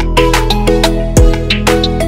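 Background music with a steady beat: held melodic notes over a deep kick drum and sharp percussion.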